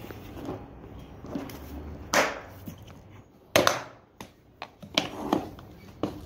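Yellow hard plastic Kratos magnet-fishing case being shut and handled: a series of sharp plastic clacks and knocks as the lid comes down over the coiled rope and the latches close, the loudest a little past the middle.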